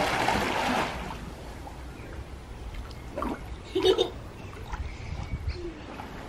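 Splash of a child diving head-first into a swimming pool, the water churning loudly for about a second, then dying down to quieter splashing and lapping as she swims.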